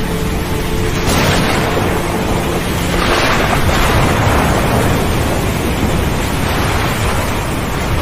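Stormy sea ambience: a loud, steady rush of wind and surf that swells about a second in and again around three seconds.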